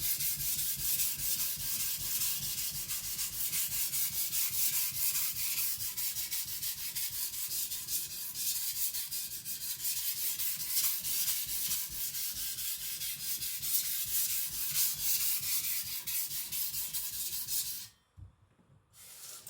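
Steel cleaver edge being stroked rapidly back and forth on a water stone, a steady scratchy hiss of sharpening. It stops suddenly near the end, followed by one short further scrape.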